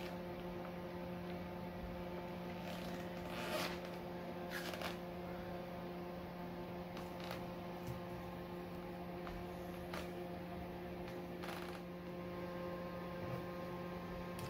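A steady low electrical hum, with a few faint rustles and light taps as grated cheese and fried potato slices are laid into a baking tray of eggplant lasagna.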